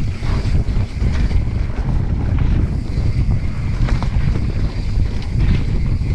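Wind buffeting the microphone of a mountain biker's camera while riding fast down a dirt trail, a steady deep rumble with a few sharp clicks and knocks from the bike over bumps.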